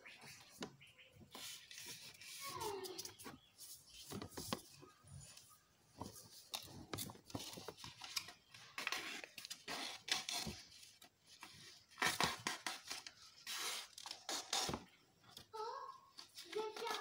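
Sheet of paper rustling and crinkling as it is folded and creased by hand, in irregular bursts.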